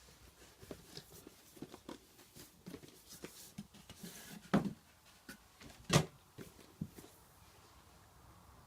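Keys being pressed on a Keychron V6 Max mechanical keyboard with Gateron Brown tactile switches: irregular light key clacks, with two much louder knocks, one about halfway through and another a second and a half later.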